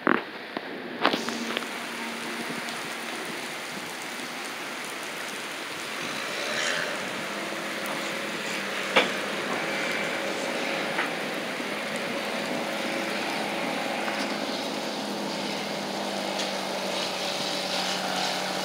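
Heavy rain pouring onto a paved parking lot, a steady hiss with a low steady hum beneath it. There are a couple of sharp knocks in the first second or so and another about nine seconds in.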